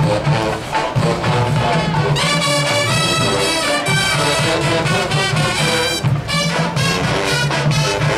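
University marching band playing a loud brass tune, with trumpets, trombones and sousaphones over a pulsing beat from the marching bass drums.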